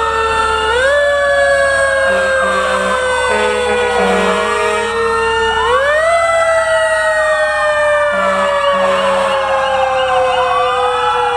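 Several fire truck sirens wailing at once, overlapping pitches that rise and then fall slowly, with a faster warbling siren near the end. Short, low horn blasts sound a few times between about two and five seconds in and again around eight seconds.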